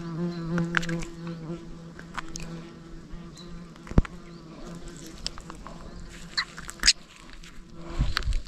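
A flying insect buzzing close by: a steady, slightly wavering drone that fades out about seven and a half seconds in. A single sharp click stands out about four seconds in.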